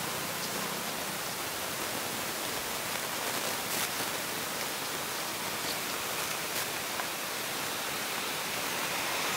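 Steady, even hiss of outdoor background noise, with a few faint ticks.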